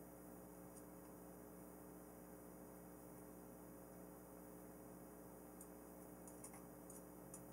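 Near silence: a steady low electrical hum, with a few faint, irregularly spaced light clicks, mostly in the second half, from small screws being turned with a hex driver.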